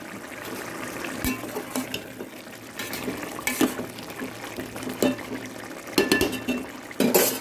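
Mutton gravy boiling in a metal pot, bubbling and popping steadily, with scattered sharper pops and a louder burst near the end.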